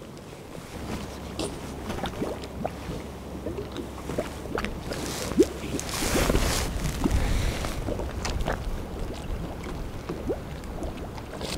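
Wind buffeting the microphone over the wash of harbour water, the rumble gusting stronger about six seconds in, with a few faint clicks.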